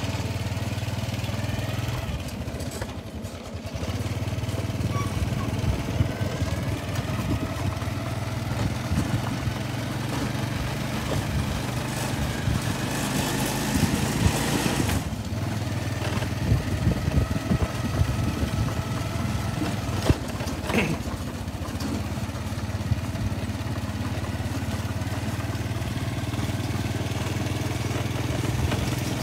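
Engine of the elephant food wagon running steadily as it drives, a low, even hum, with a rougher, more uneven stretch of knocks in the middle.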